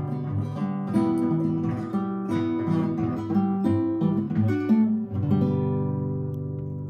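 Acoustic guitar music without singing: a run of picked notes, then a last chord about five seconds in that rings on and slowly fades.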